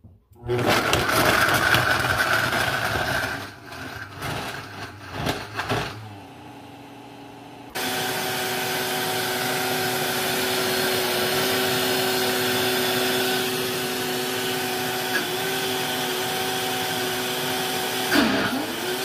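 Countertop blender motor running on a thick frozen-fruit smoothie. It starts loud for about three seconds, goes uneven and quieter, then from about eight seconds in settles into a steady hum with a constant whine.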